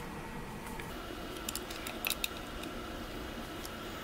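Light metallic clicks and taps of a Phillips screwdriver turning the screws of a 20-amp, 240-volt plug as it is assembled, with a handful of small clicks about one and a half to two and a quarter seconds in.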